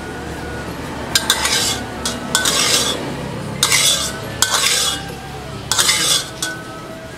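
A metal ladle scraping and clinking against the inside of a metal wok as it stirs a little oil. There are about five scraping strokes, roughly a second apart, each with a brief metallic ring.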